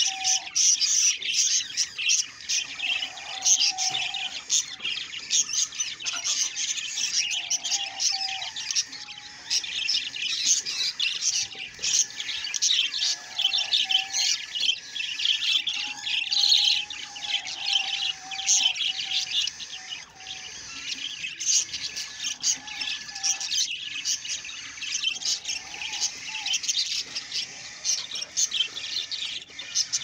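Budgerigars chirping and chattering continuously in a dense run of quick high notes, with a lower wavering note coming and going.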